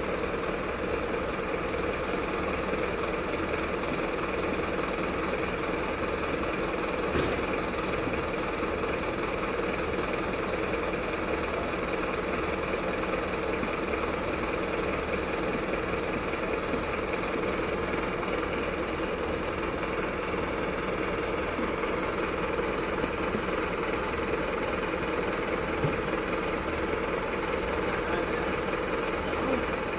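Truck engine idling steadily, with an even low pulsing, and a single short click about seven seconds in.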